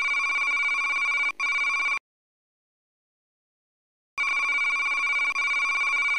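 Electronic trilling ring, like a telephone's, in two bursts of about two seconds each with about two seconds of silence between them. The first burst breaks off for an instant a little over a second in.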